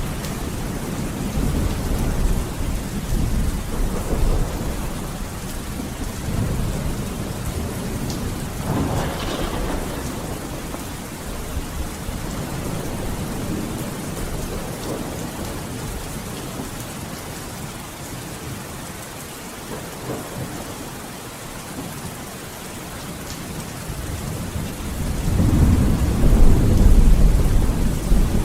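Steady heavy rain with rolling thunder: low rumbles swell and fade in the first part, and a loud, deep roll of thunder builds near the end.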